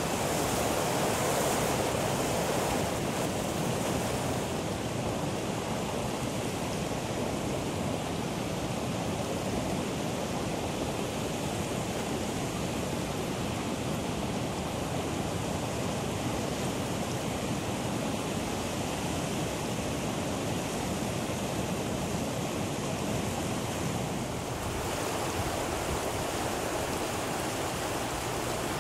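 Fontan Geyser erupting: a steady rush of spraying hot water and steam. The sound brightens about three-quarters of the way through, where rushing stream water joins it.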